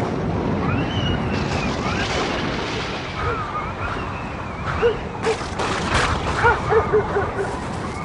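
Storm sound effect: steady rain and wind noise, with a cluster of sharp thunder cracks a little past the middle.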